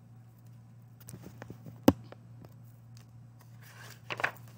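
Pages of a hardcover picture book being handled and turned, with soft paper rustling, small ticks and one sharp tap about two seconds in. A steady low hum runs underneath.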